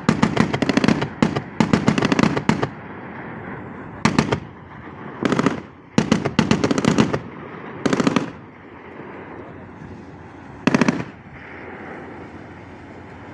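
Anti-aircraft gun firing in short bursts of rapid automatic shots, about eight bursts, the last one about eleven seconds in.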